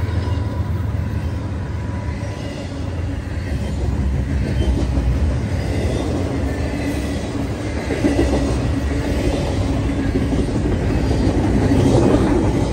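Double-stack intermodal freight cars rolling past at speed: a steady rumble of steel wheels on the rails, a little louder near the end.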